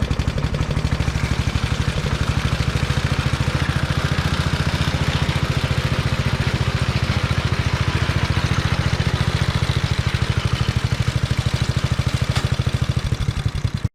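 Rope-started gasoline engine of a Locke Triplex reel mower running steadily at a raised throttle, with an even, rapid exhaust beat.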